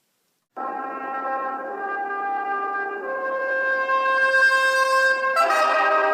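Music: after a brief silence, sustained held chords that grow louder, changing to a new, brighter chord about five seconds in.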